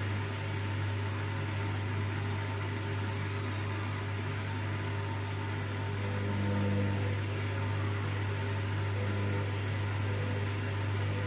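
Hoover washing machine running with a steady low hum, its drum struggling to get up to spin speed. The hum swells a little about six to seven seconds in.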